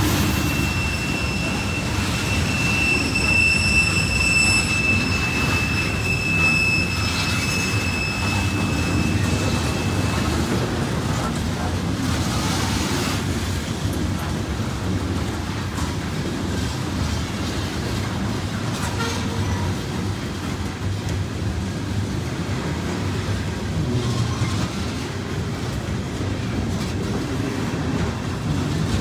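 Norfolk Southern coal hopper cars rolling past with a steady low rumble of steel wheels on rail. A high-pitched wheel squeal rings out from about a second in until about ten seconds in.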